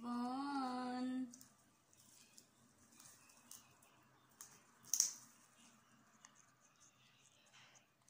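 African grey parrot giving a short wavering hum-like call for about a second, then nibbling at its wooden perch with small scattered beak clicks, one sharper click about five seconds in.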